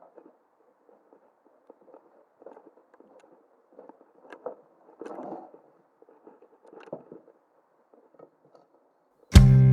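Faint, scattered clicks, knocks and short scrapes of hand work, then loud guitar music starts abruptly near the end.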